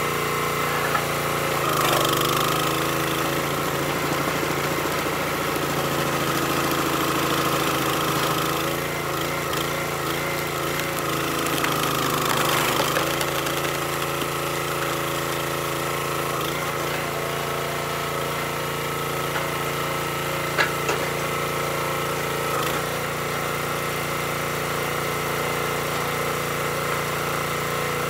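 Small gasoline engine of a hydraulic log splitter running steadily while the ram drives a large round onto the wedge; the engine note shifts as it takes load, and there is a single sharp crack about two-thirds of the way through.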